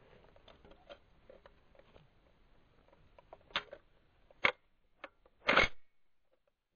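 Faint ticking, then four sharp clicks or knocks over about two seconds, the last the longest and loudest.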